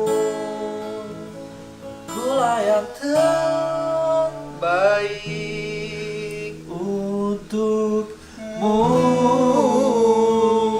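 Acoustic guitar strumming with a voice singing long wordless notes that slide and waver between pitches, closing out a slow pop ballad.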